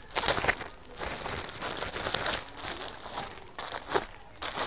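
Clear plastic packaging bag crinkling in irregular rustles as a folded dress is handled and shifted inside it.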